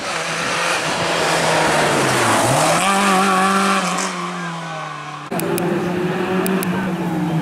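Rally car engine: its pitch drops as the car slows, then rises sharply as it accelerates hard. About five seconds in it cuts abruptly to another car's engine running at steady high revs, with a few sharp clicks.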